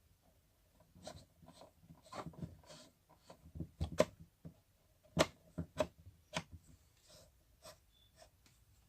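Irregular clicks, light knocks and scraping of metal parts as a wall fan's motor is fitted back together and its nuts put on. The sharpest knocks come about four, five and six and a half seconds in.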